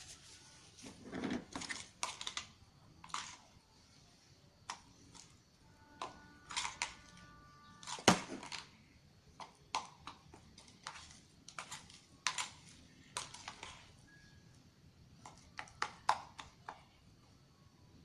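Slime mixture being stirred in a bowl with a utensil: irregular clicks and taps of the utensil against the bowl, the sharpest about eight seconds in.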